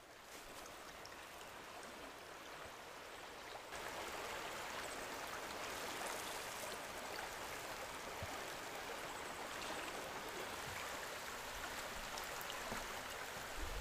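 River water rushing over rocks in shallow class-two rapids, a steady rush that grows louder about four seconds in.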